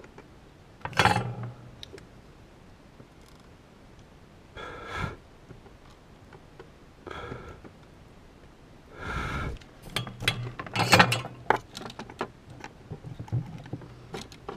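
Handling noises during hand soldering on a protoboard: a few breaths or sniffs spaced a couple of seconds apart, then a flurry of small clicks and taps as the board and parts are handled about two-thirds of the way in.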